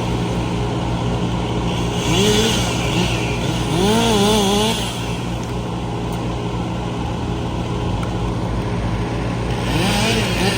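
A large engine running steadily, with a second pitched engine sound rising and falling in pitch about two seconds in and again near the end.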